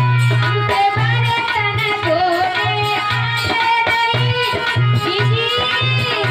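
Bhajan music: an instrumental passage with a plucked-string melody over a steady, repeating drum beat.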